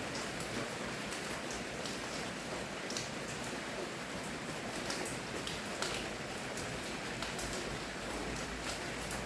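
Steady rain falling, a dense even hiss with individual drops pattering on a surface now and then.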